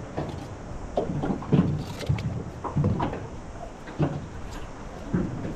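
Metal camping mugs and a small gas stove handled on a boat's console: a series of short, irregular knocks and clinks as mugs are set down and the stove burner is fitted to its gas canister.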